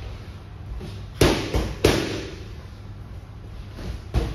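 Boxing gloves smacking into focus mitts: a quick combination of three punches about a second in, then another punch near the end.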